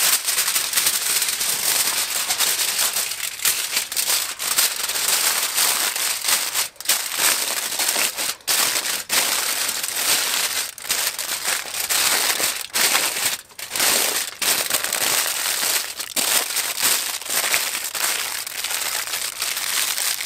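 Aluminium foil crinkling and crackling as hands fold and press it around a whole fish, nearly continuous with a few brief pauses.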